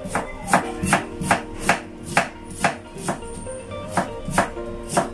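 Kitchen knife slicing an onion on a wooden cutting board: a steady run of chopping strokes, about two or three a second.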